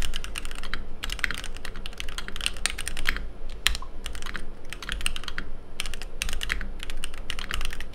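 Typing on a Keychron Q1 gasket-mount mechanical keyboard with its aluminium case: fast runs of key clacks broken by short pauses. The sound is very pingy and metallic, with masking tape under the board as a tape mod.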